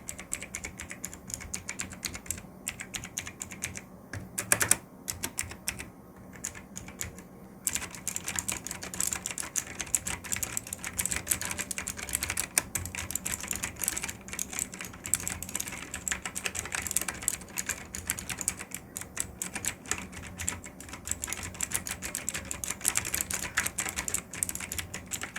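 Xecret K820L mechanical keyboard with clicky Outemu Blue switches being typed on: separate key presses for the first several seconds, then fast continuous typing from about eight seconds in.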